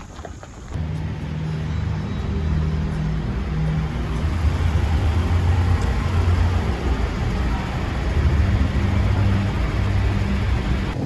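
A motor vehicle's engine running with a steady low hum, coming in abruptly about a second in and staying loud.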